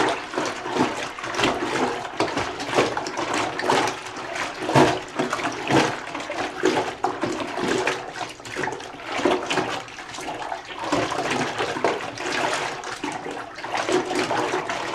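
Dark clothes being agitated by hand in a plastic 5-gallon bucket of hot soapy water: irregular sloshing and swishing, several strokes a second without a break.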